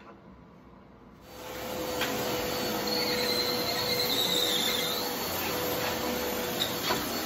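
Corded upright vacuum cleaner running, a steady rush of air over a constant motor hum, coming in about a second in. A few light knocks sound as it is pushed about.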